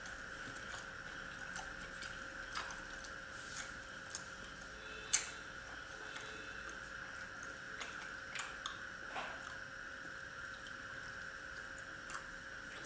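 Quiet eating by hand: scattered small clicks and taps as fingers tear ghee-fried paratha against plates and steel bowls, with chewing, and one sharper clink about five seconds in. A steady faint hum runs underneath.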